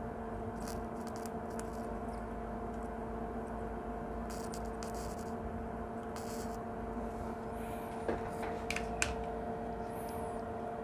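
Steady electrical hum with a low rumble, broken by a few faint small clicks and scrapes of handling tools and parts.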